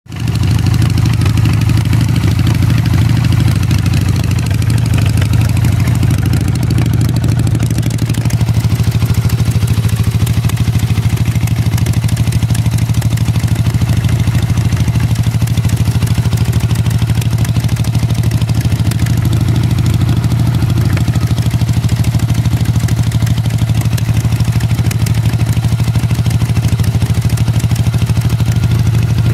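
A 1985 Harley-Davidson Ironhead Sportster's air-cooled 1000 cc V-twin idles steadily, with an uneven, clattery beat. The owner reports the rear cylinder popping and backfiring badly and running cooler than the front, a fault he has not yet traced.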